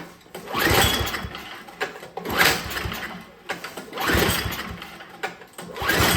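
Recoil pull-starter of a Tecumseh 5 hp snowblower engine yanked four times, about one pull every second and a half or two, each a quick rising whir of the rope and the engine turning over. The engine is on full choke and primed, but it cranks without firing.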